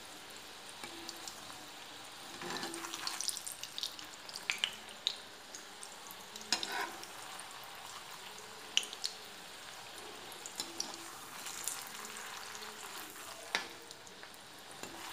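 Bread gulab jamun balls frying in a little refined oil in a kadhai: a steady sizzle. Scattered sharp clicks and scrapes come from a perforated metal skimmer as it stirs and turns the balls against the pan.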